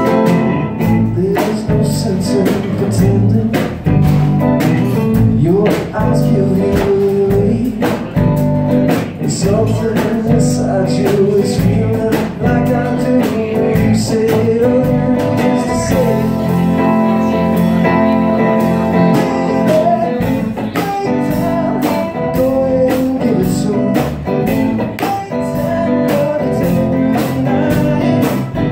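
Live band playing: electric guitar, electric bass and a drum kit keeping a steady beat, with a man singing at times.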